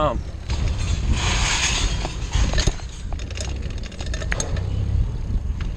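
Mountain bike rolling fast over a dirt trail: a steady low wind rumble on the microphone and tyre noise, with scattered rattles and clicks from the bike and a brief rush of hiss about a second in.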